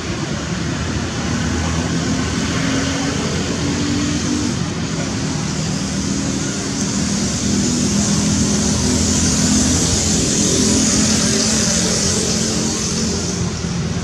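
Steady road traffic noise with a motor vehicle's engine running close by. It grows louder about seven seconds in and eases off near the end, as a vehicle passes.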